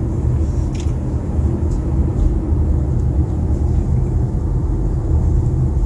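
Steady low road and tyre rumble inside the cabin of a moving Kia Sportage, with no creaking from the panoramic sunroof: its rubber seals are freshly greased and the creak is gone.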